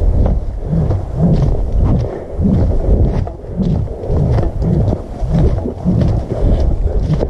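Footsteps of a hiker walking briskly over dry fallen leaves, about two steps a second, with crunching leaves between the thuds and a steady rumble of wind on the microphone.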